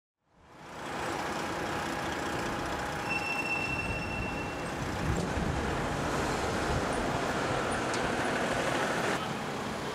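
Roadside traffic noise: a steady rush of passing vehicles that fades in over the first second. A few seconds in, a thin, high, steady whine lasts about a second and a half. The sound drops abruptly near the end.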